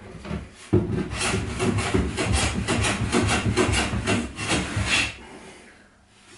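Hand plane shaving the edge of a wooden cabinet door in a quick run of short scraping strokes, starting about a second in and stopping about five seconds in.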